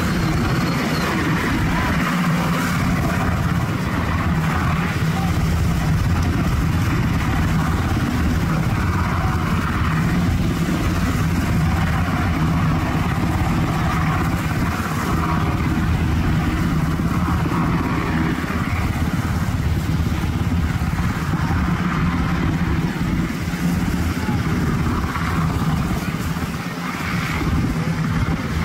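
HH-60 Pave Hawk helicopter hovering low overhead: a steady, loud rotor beat with turbine noise, easing slightly near the end.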